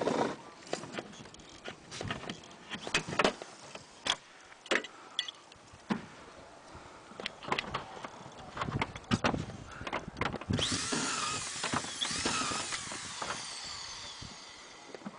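Irregular knocks and clanks as steel standing seam roof panels and hand tools are worked. About ten seconds in this gives way to a few seconds of denser metallic noise with wavering tones, which fades out.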